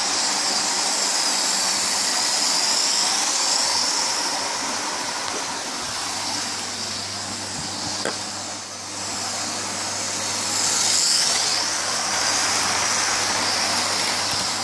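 Lima OO-gauge InterCity 125 model train running round its track: a steady whirr from its small electric motor and wheels on the rails, swelling a little as it passes, with a single click about eight seconds in.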